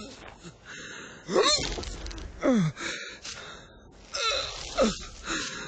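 A cartoon sheep's voice making four strained, gasping breaths, mostly falling in pitch, about a second apart.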